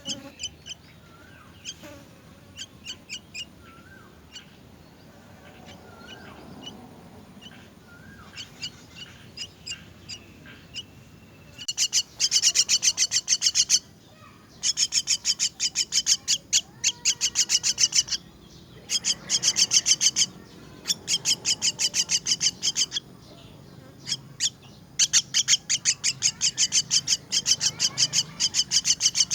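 Myna nestlings begging: scattered short chirps at first, then loud bursts of rapid, high, repeated calls, each lasting a second or two, with short pauses between.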